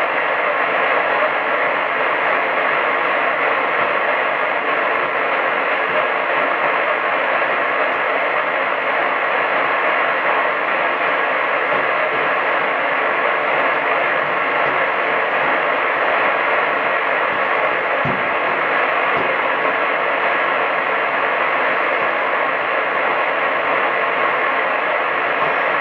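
Medium-wave AM radio receiver giving out steady hiss and static, muffled with nothing above the treble, with no programme audible.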